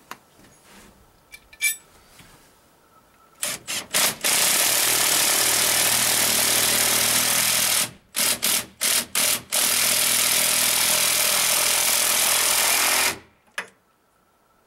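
Cordless drill-driver running against a log wall: a few short trigger blips, then two long runs of about three and a half seconds each, separated by several quick bursts, stopping shortly before the end.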